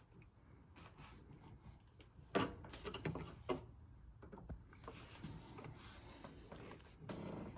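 A few sharp clicks and light knocks from a screwdriver and screws being handled at a light switch, the loudest about two and a half seconds in.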